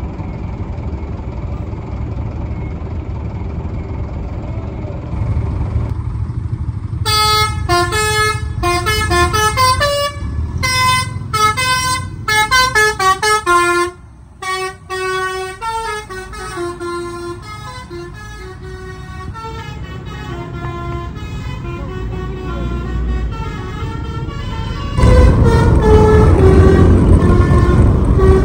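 A bus's telolet horn plays a rapid, changing run of tooting notes over a low diesel engine rumble. The notes come in about seven seconds in, are loudest for several seconds, then fade away. Near the end a louder, denser sound takes over.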